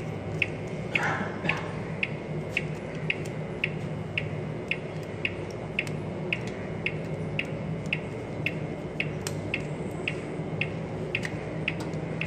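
Four-zone conventional fire alarm control panel's buzzer beeping: a steady run of short, high pips, about two a second. A low steady hum lies under it.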